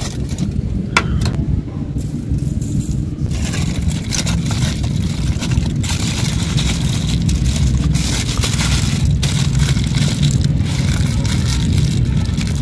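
Aluminium foil crinkling and rustling as a fish is rolled up and pressed into a foil parcel, starting about three seconds in and going on steadily, over a constant low rumble.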